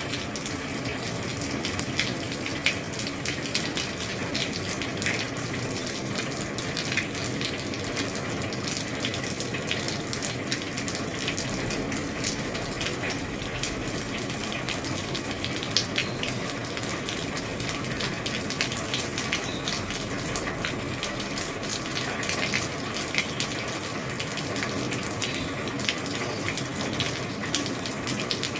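Steady heavy rain drumming on an old roof, a dense patter of drops with now and then a louder, sharper drip or tap.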